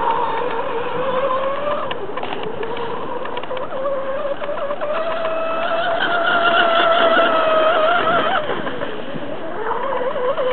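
Electric RC speedboat running on a 3S LiPo pack with a 36 mm brass propeller: a steady motor whine that rises in pitch, wavers, dips about eight seconds in and climbs again near the end.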